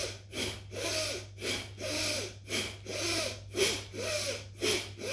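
Bhastrika pranayama (bellows breath): a woman breathing forcefully in and out through the nose in a fast, even rhythm of about two to three breaths a second.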